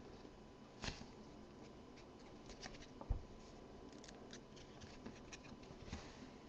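Faint rustling and sliding of trading cards being handled and shuffled through a stack, with scattered soft clicks and a soft thump about three seconds in.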